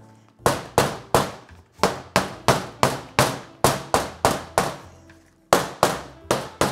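Wooden loaf soap molds knocked repeatedly against a stainless steel table, about three sharp knocks a second with a brief pause near five seconds in, settling the freshly poured soap batter.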